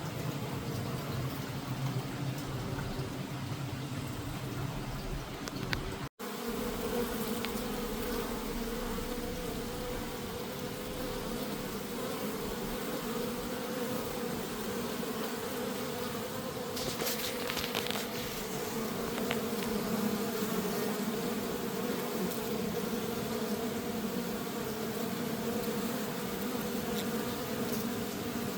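Honeybees buzzing around a hive in a steady hum, broken by a brief cut about six seconds in.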